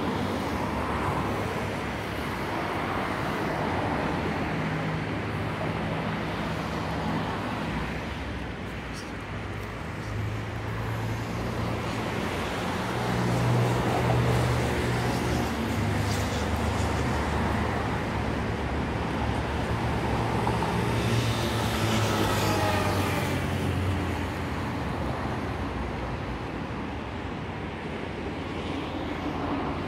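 Road traffic: vehicle engines running and passing, with a steady low engine hum that grows louder in the middle and eases off near the end.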